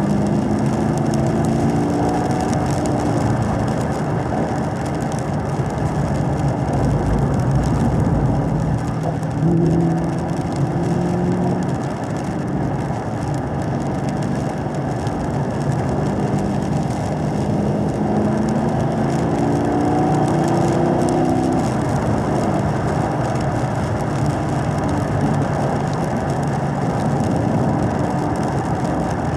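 2017 Camaro SS 1LE's 6.2-litre V8 running steadily at part throttle around 3,000 rpm, heard from inside the cabin, its pitch rising and falling gently a few times. Under it is a steady hiss of tyres and spray on the wet track.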